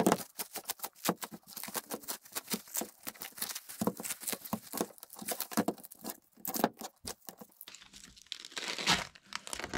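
Plastic cling film crinkling and tearing in quick crackles and snaps as it is pulled off wrapped press plates.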